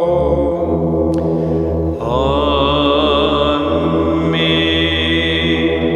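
Male cantor chanting Byzantine Orthodox hymnody in long, ornamented notes over a steady low drone. The line breaks briefly about two seconds in and then resumes with a wavering melisma.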